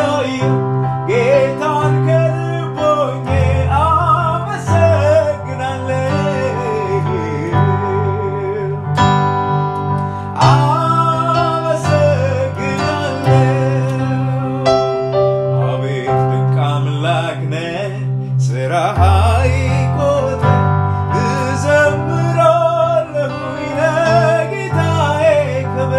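Male singer performing a worship song, his voice sliding and wavering on long notes over steady instrumental backing with held chords and a bass line that changes every few seconds.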